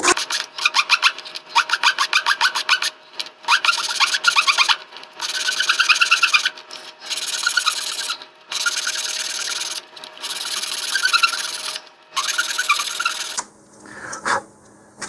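Sandpaper on a sanding block rubbing back and forth on the edge of a model rocket engine mount's centering ring, sanding it down so the tight mount will fit the body tube. Quick short strokes at first, then longer spells of sanding with brief pauses, stopping shortly before the end.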